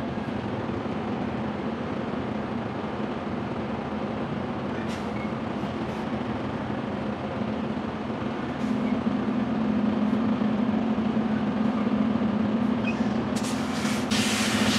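Semi-truck diesel engine running steadily, getting a little louder about nine seconds in. Near the end come a few sharp clicks and a burst of hiss.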